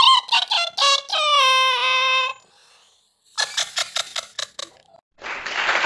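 A woman mimicking a horn fanfare with her voice: a quick run of short toots ending on one held note. A short burst of laughter follows, and applause starts near the end.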